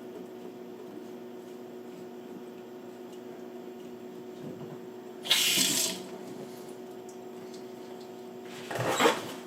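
Water running from a kitchen faucet through a newly fitted universal pull-down spray head, a steady flow with a low hum, with a brief louder hiss about five seconds in. The head is only hand-tightened and leaks at the threaded connection.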